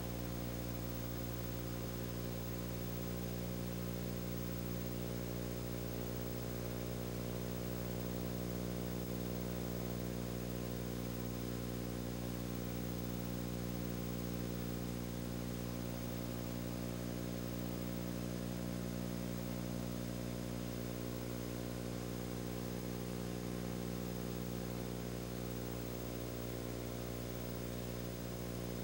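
Steady, unchanging mechanical hum with many even overtones over a faint hiss.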